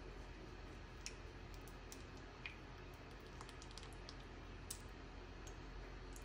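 Scattered light clicks and taps from handling small seasoning containers, a tube of garlic paste and a measuring spoon, over a faint steady hiss.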